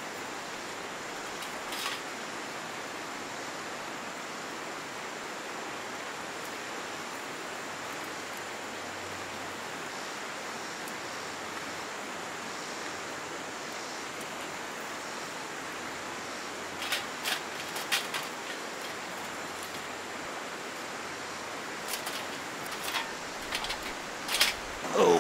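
Steady rushing of a flowing river, with a few short sharp snaps and clicks of dry twigs being broken and fed into a folding metal firebox stove: one about two seconds in, a cluster about seventeen seconds in, and more near the end.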